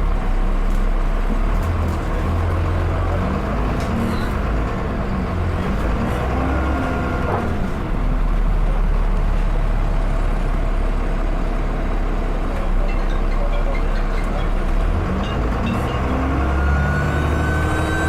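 Dennis Enviro 400 double-decker bus's diesel engine running and pulling through the gears, its pitch rising and falling. The turbocharger whistles briefly about a third of the way in, then comes back as a rising whistle near the end.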